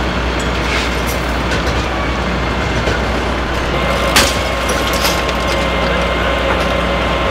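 Flatbed tow truck's engine running steadily during the recovery of a crashed work truck, with a faint steady whine over it and a single sharp metal clank about four seconds in.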